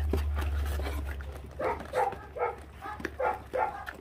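Young puppies, about four weeks old, making a quick run of short, high yaps and snarls, about three a second, starting partway through, as they squabble over raw meat and guard their food. A low rumble underlies the first second or so.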